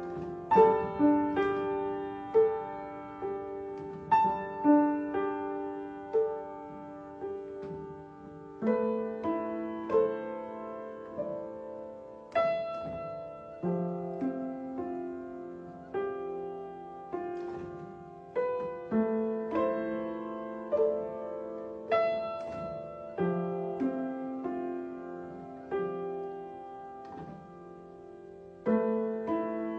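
Piano played solo: a self-composed, improvised piece of struck notes left to ring, moving in repeating broken-chord figures, with a change of chord about a third of the way in.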